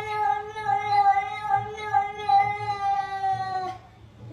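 A cat's long, drawn-out yowl held on one nearly steady pitch, sagging a little and stopping near the end.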